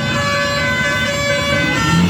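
Bus 'telolet' musical air horn playing a tune: several horn tones sound together and step from note to note.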